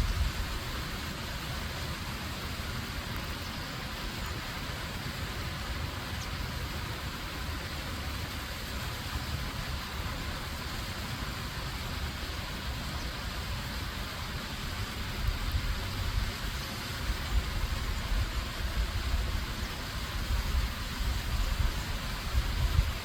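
Stream or waterfall water rushing in a steady hiss, with an uneven low rumble that swells at the start and again through the second half.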